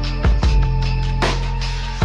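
Background music: sharp drum hits over held low bass notes.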